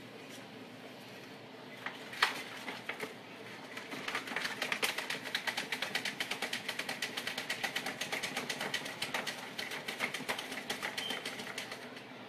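A Pomeranian puppy's paws scrabbling fast inside a shopping bag: a few sharp scratches about two seconds in, then rapid, even scratching and rustling of the bag at several strokes a second from about four seconds in until just before the end.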